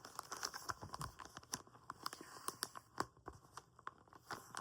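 Packaging being handled during an unboxing: irregular crinkling, rustling and small clicks as the contents are lifted out of the box.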